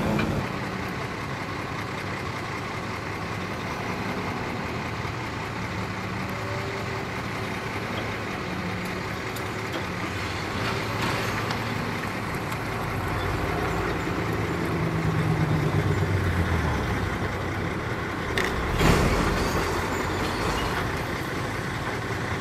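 Heavy diesel machinery running steadily, its engine note swelling louder past the middle, with two short knocks about three-quarters of the way through.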